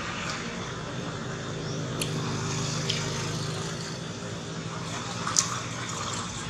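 Steady low motor hum of an engine running, with three short sharp clicks, the loudest about five seconds in.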